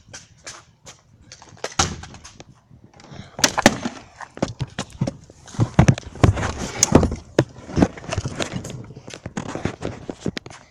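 Handling noise on a tablet being carried: rubbing, scraping and knocking against its microphone, loudest from about three seconds in.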